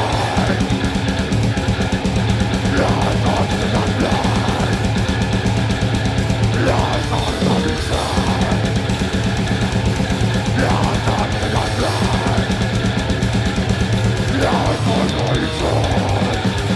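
A death metal band playing live and loud: heavily distorted electric guitars over fast, relentless drumming on a full drum kit.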